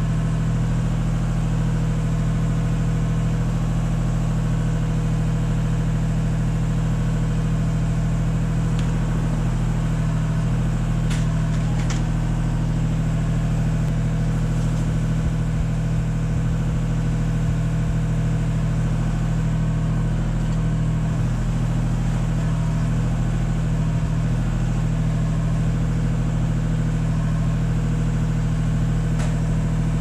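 An engine idling steadily with an even low hum, most likely the work platform's vehicle engine kept running beneath the crew. A couple of faint clicks come near the middle.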